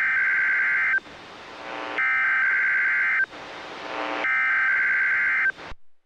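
NOAA Weather Radio SAME (EAS) digital header for a Required Weekly Test, taken straight from the radio's line output: a high warbling data burst sent three times, each a little over a second long with about a second of faint hiss between. The first burst is already sounding at the start and ends about a second in. The audio cuts off suddenly just before the end.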